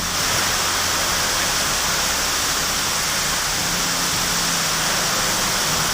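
Heavy rain pouring down in strong wind, a steady, even rushing noise with no letup.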